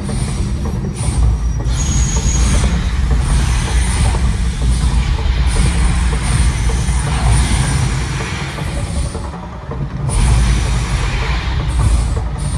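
Mirage volcano show erupting: a loud, deep continuous rumble with the hissing whoosh of gas-fired flames bursting up. The sound dips about nine seconds in and surges back a second later.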